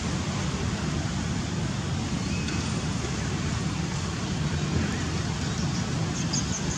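Steady outdoor background rumble and hiss, heaviest in the low end, with no distinct animal calls; a few faint high chirps come near the end.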